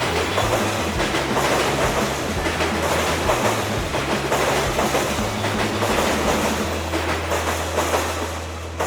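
A train running past close by, its wheels clacking over the rail joints amid a dense rolling rush.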